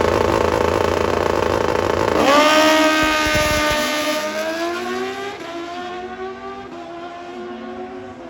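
Drag-racing motorcycle engines at full throttle on a quarter-mile run. A loud, rough engine sound about two seconds in gives way to a clearer engine note that drops in pitch and then fades as the bikes pull away down the strip.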